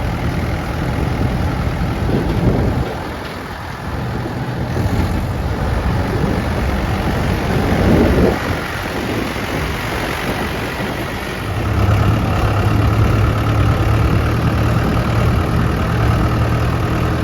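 Heavy diesel engine of a backhoe or tractor running under varying load, its note shifting several times and growing louder about twelve seconds in.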